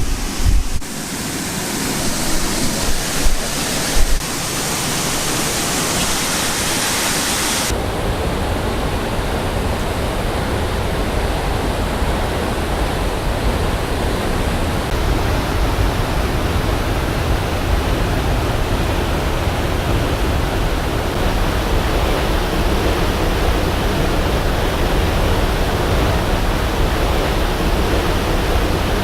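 Steady rushing noise of a waterfall. About eight seconds in it changes abruptly from a bright hiss to a fuller, deeper rush.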